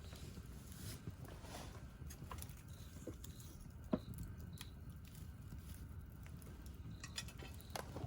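Wood campfire crackling, with scattered small snaps and one sharper pop about four seconds in.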